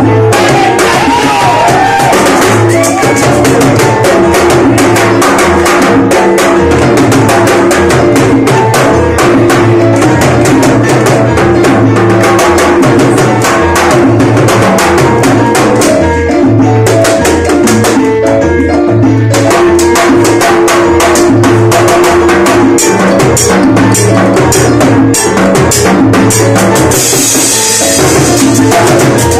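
Live charanga band playing a salsa number: timbales and congas over an upright bass line, with dense percussion strokes throughout.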